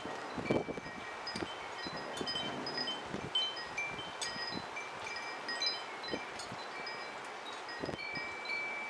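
Wind chimes ringing irregularly, several different notes, as gusts of wind stir them. Wind buffets the microphone, with a few brief low thumps.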